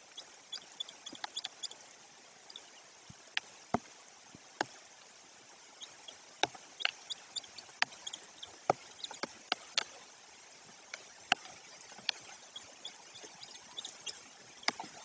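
Rain falling on a treetop nest: a steady soft hiss with irregular sharp ticks of drops striking close to the microphone, several a second.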